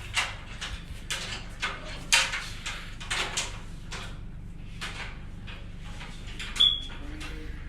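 A series of scrapes and knocks of uneven strength, with a brief high squeak near the end, over a steady low hum.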